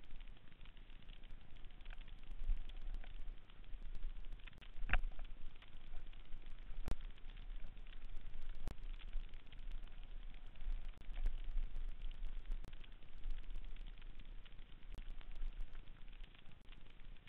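Mountain bike riding fast down a dirt singletrack, heard from a camera on the rider: a continuous crackling rattle of tyres over dirt, roots and twigs, dense with clicks and knocks from the bike. Sharper knocks come about five seconds in and again about seven seconds in.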